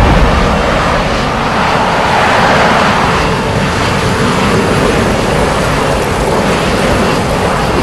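Film sound effect of a spacecraft's jet thrusters firing as it descends and sets down: a loud, steady rushing noise that starts abruptly.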